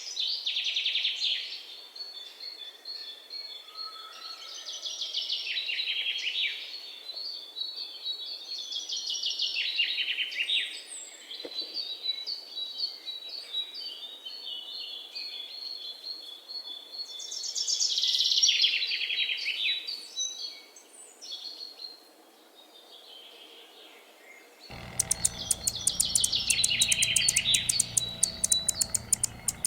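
Birds singing: rapid trills that fall in pitch every few seconds, over a steady run of short high chirps. Near the end the sound changes abruptly to fast, regular clicking over a low rumble, alongside more bird trills.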